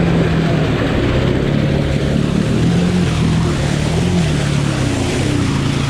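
Honda ATV engine running hard under load, its pitch rising and falling with the throttle, while the tyres spin and fling mud as the stuck quad is pushed through a deep mud hole.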